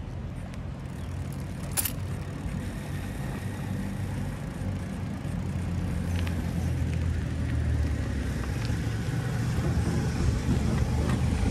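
Wind buffeting the microphone over the rumble of bicycle tyres rolling fast on asphalt, growing louder as the bike picks up speed. A sharp click sounds about two seconds in.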